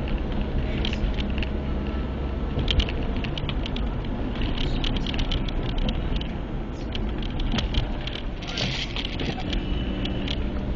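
Car driving on a winding road, heard from inside the cabin: a steady rumble of engine and road noise, with many scattered light clicks and rattles over it.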